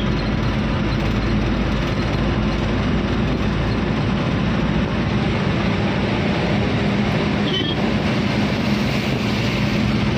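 Truck driving at speed on a highway: a steady engine drone under loud, even road and wind noise.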